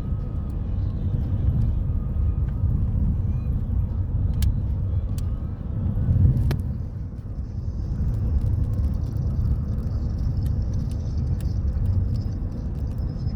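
Road noise inside a moving car's cabin: a steady low rumble, with a few sharp clicks about four to six seconds in and a higher hiss joining from about eight seconds in.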